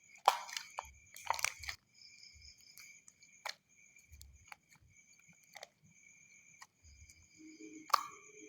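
Sticky jelly slime being squeezed and pulled by hand, giving short wet clicks and crackles every second or so.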